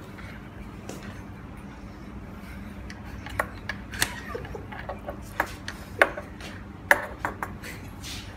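Sharp, irregular clicks and clinks of a small metal tool working screws in the plastic mounting base of a patient monitor, over a steady low hum. The clicks come mostly in the second half, the loudest about six and seven seconds in.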